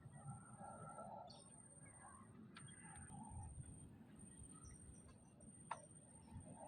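Faint outdoor ambience: a few small bird chirps and scattered clicks over a low rumble, with a thin steady high whine.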